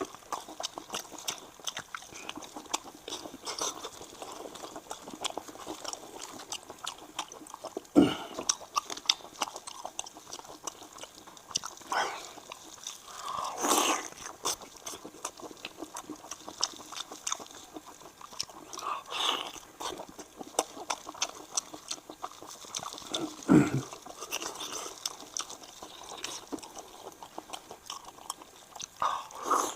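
A person eating spicy braised sheep's head meat: steady wet chewing and mouth clicks, with a few louder bites or sucks spaced several seconds apart.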